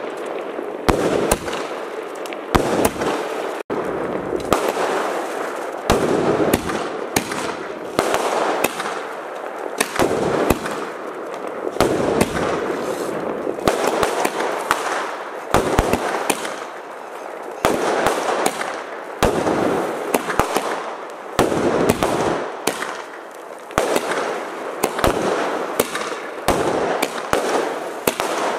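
Aerial fireworks bursting in quick, irregular succession: a near-continuous string of sharp bangs, several a second.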